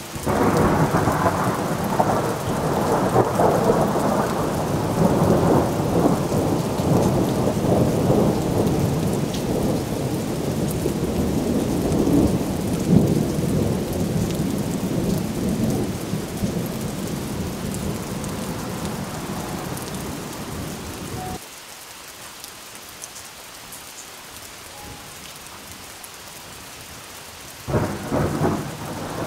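A thunderstorm: a long roll of thunder starts suddenly over falling rain, rumbles loudly for about twenty seconds and cuts off abruptly, leaving steady rain. Near the end another peal of thunder begins.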